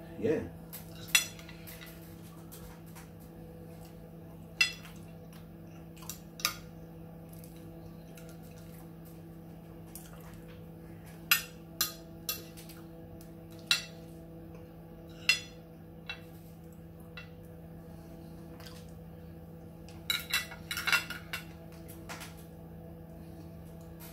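Metal fork and knife clinking and scraping against a plate while food is cut and picked up: a dozen or so sharp clinks spread out, with a quick cluster near the end. A steady low hum runs underneath.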